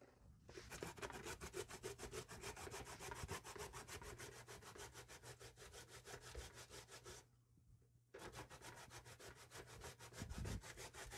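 A carrot being grated on a plastic box grater with metal blades: rapid, even scraping strokes, about five a second, with a short pause about seven seconds in before the grating resumes.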